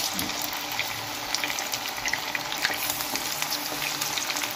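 Marinated chicken necks deep-frying in hot oil in a karahi as more pieces are dropped in by hand: a steady sizzle dotted with many small crackles and pops.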